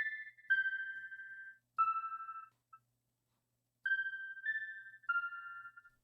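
Sparse high synthesizer notes, some sounded two at a time, each fading out within about a second, with a silent gap of about a second near the middle: a slow ambient phrase played on an OP-1 synth patch.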